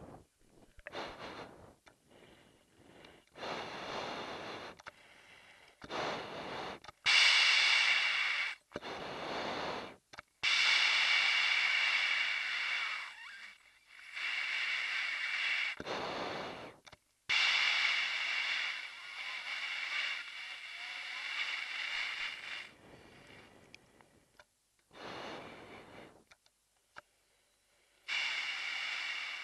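A woman breathing through an MBU-12 oxygen mask: a series of hissing breaths of uneven length, some short and some drawn out over several seconds, with short pauses between them.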